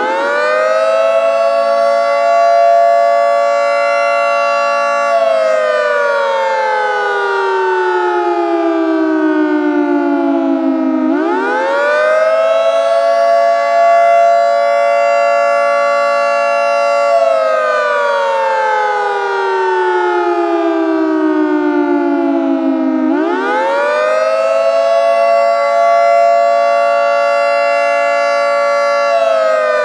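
Synthesized 2T22 siren in repeated cycles. Each time it winds up fast to full pitch in about a second, holds steady for about five seconds, then winds down slowly over about six seconds. The windup follows a hyperbolic-tangent curve, so it eases into its peak pitch rather than reaching it abruptly.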